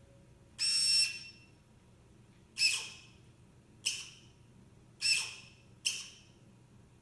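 Servo motor of an EZGripper robotic gripper whining in five short, high-pitched bursts. Each burst starts sharply and fades, and the first is the longest.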